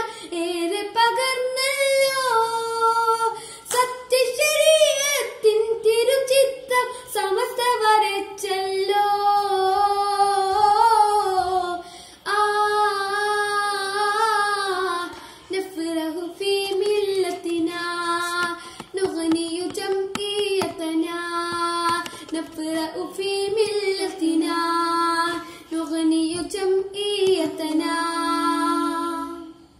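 A boy singing a Malayalam song solo and unaccompanied, with wavering, ornamented notes, ending on a long held note near the end.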